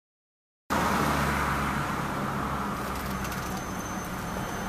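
Silence, then, under a second in, a car's engine and road noise as heard from inside the cabin of a slowly moving car, a steady low hum.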